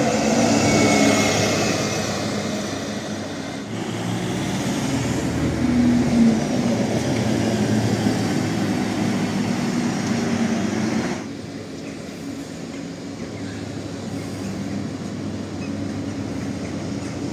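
City buses driving past at close range: engine hum and tyre noise of one bus, then after a sudden change a second bus passing. After about eleven seconds the sound drops to quieter, steady street traffic.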